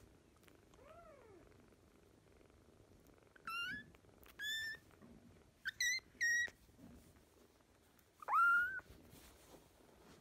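Young kitten mewing: a faint call about a second in, then five short high-pitched mews between about three and a half and nine seconds in, the last one the loudest.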